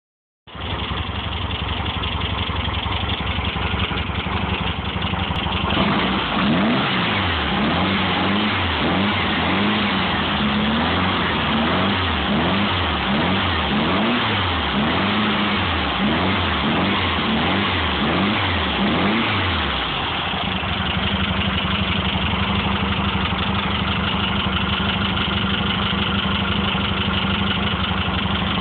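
A John Maher Racing 1776 cc air-cooled VW flat-four engine idling, then revved up and down about ten times in quick succession before it settles back to a steady idle.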